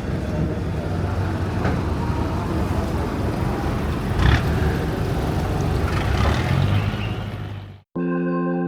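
River ferry boat's engine running steadily, heard on board. Near the end it cuts off suddenly and sustained organ-like music begins.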